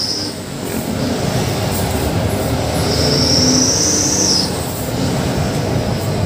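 Sany dump truck running on the road, heard from inside its cab as a steady engine and road rumble. About three seconds in, a high, thin squeal rises over it and lasts about a second and a half.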